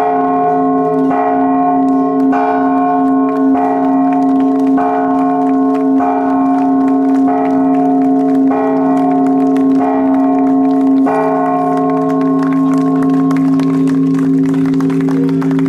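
Large church bell struck by its clapper, pulled on a rope by hand, in even strokes about every 1.2 seconds. The strokes stop about 11 seconds in, and the bell's hum rings on.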